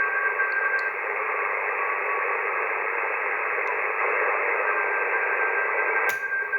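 Icom IC-7300 shortwave transceiver receiving the 20 m band: steady band hiss squeezed into the narrow audio passband of a sideband filter. A thin steady tone from a carrier fades about a second in and returns near the end. There is one sharp click about six seconds in.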